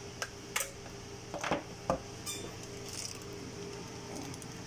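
Sharp plastic clicks and clacks of a video laryngoscope's battery compartment being opened and its AA batteries taken out and set on the bench: four distinct clicks in the first two seconds, then softer handling, over a steady hum.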